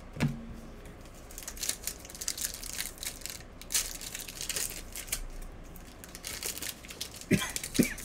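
Trading card packs and cards being handled: wrappers crinkling and cards shuffled, making a run of small irregular clicks and rustles.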